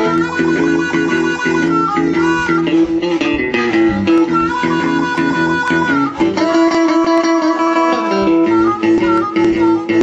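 Live electric blues instrumental passage: a Stratocaster-style electric guitar plays a repeating riff on a steady low note, with harmonica holding and bending notes over it.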